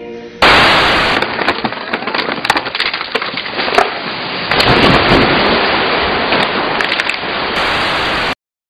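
Loud crackling static noise with scattered sharp snaps, settling into a steadier hiss. It starts suddenly about half a second in and cuts off abruptly shortly before the end.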